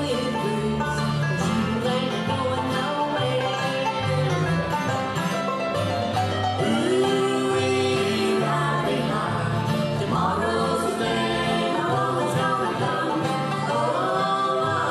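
Bluegrass band playing live: banjo, acoustic guitar, fiddle and upright bass together, with the bass walking through changing notes underneath.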